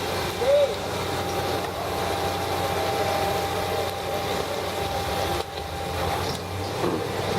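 Fire engines running steadily, a constant engine drone with a steady whine.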